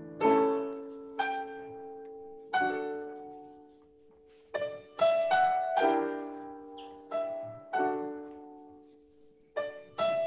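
Upright piano played solo in a slow piece: chords and single notes struck a second or two apart, each left to ring and fade, with a near-pause about four seconds in.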